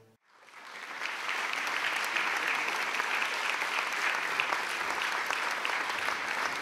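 Concert audience applauding: many hands clapping, building up over about the first second and then holding steady.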